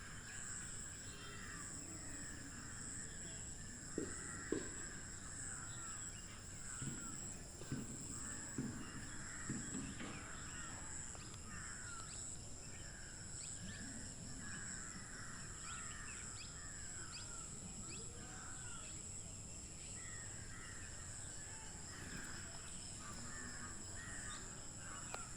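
Birds calling continuously in a chattering, cawing chorus over a steady high-pitched whine, with a couple of brief knocks about four seconds in.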